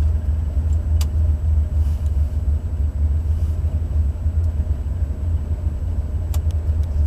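Stage 1 Buick 455 V8 running with a steady, deep low rumble. A sharp click about a second in and another near the end.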